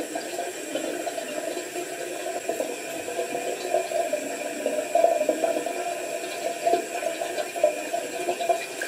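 Water running steadily in a small tiled bathroom.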